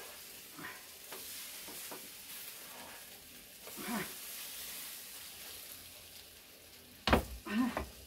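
Food sizzling in a pan over a wood fire in a fireplace, a steady hiss, with one sharp knock about seven seconds in.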